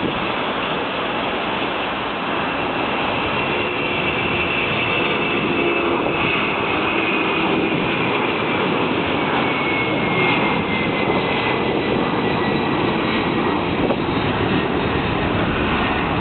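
Boeing 767-300ER's twin turbofan engines at takeoff thrust: steady jet noise as the airliner lifts off and climbs away. A faint whine slowly falls in pitch through the second half.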